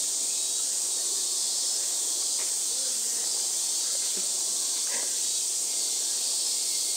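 Steady high-pitched chorus of summer cicadas, an even hiss, with a couple of faint brief sounds in the middle.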